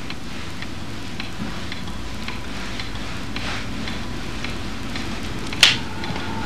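Terry towel rubbing wet hair: a steady rustling hiss with faint scattered ticks, broken by one sharp click about five and a half seconds in.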